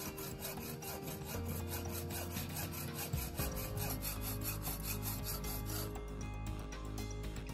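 Hand hacksaw cutting through a rusted steel bolt on a blower's motor housing, with rapid back-and-forth strokes, about five a second.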